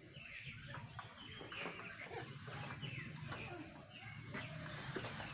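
Small birds chirping repeatedly in short, quick downward-sliding calls, over a low steady hum.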